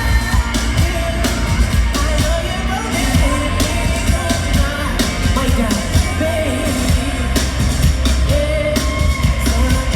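Live concert music: a heavy, steady bass line and drums under sung vocal lines that rise and fall, at full volume.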